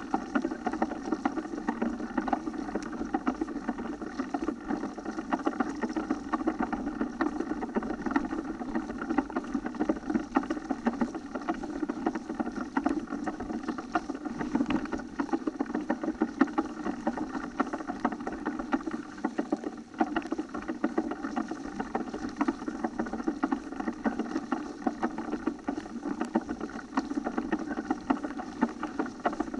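Mountain bike riding along a leaf-covered forest dirt track, heard through the bike-mounted camera: a steady rumble of tyres on rough ground with a dense, constant rattle.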